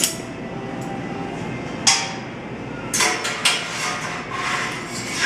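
Metal clanking and scraping: sharp metallic knocks about two seconds in, twice around three seconds, and again at the end, with scraping between them.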